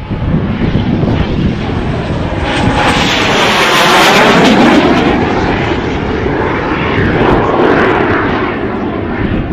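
Aero L-29 Delfín jet trainer's single turbojet flying past. The steady jet noise builds to its loudest about four seconds in, then slowly fades.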